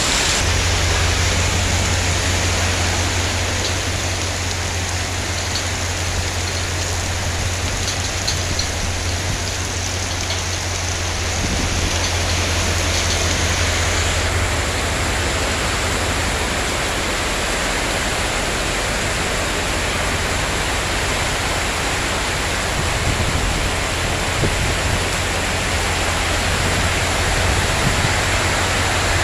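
Heavy rain pouring down in a steady, loud hiss, with a low rumble underneath.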